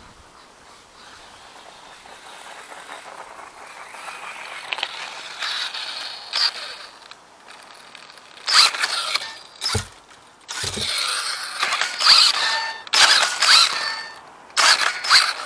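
Four-wheel-drive RC truck's electric motor and geared drivetrain whirring and clattering. It builds up gradually, then runs in repeated short bursts of throttle in the second half.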